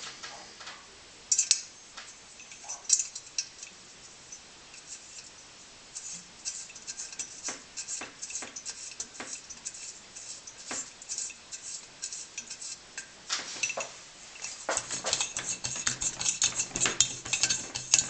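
Light metal clinks and taps from the brass parts of an Optimus No 415 blowtorch being handled and put back together. The taps come close and fast in the second half, and a low steady hum joins about fifteen seconds in.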